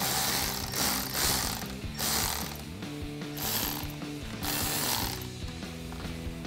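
Cordless electric ratchet spinning a nut off a battery terminal stud, running in four short bursts.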